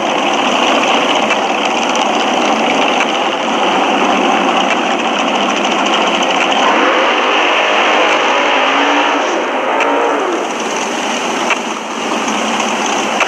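Steady race-engine noise at a drag strip, with faint voices from around the track about halfway through.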